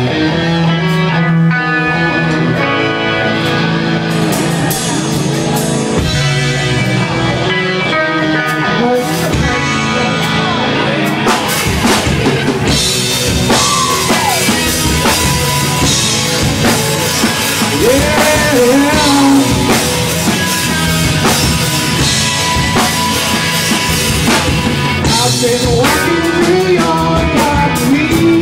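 Live rock band playing loud: distorted electric guitars and a drum kit, with a male singer on lead vocals.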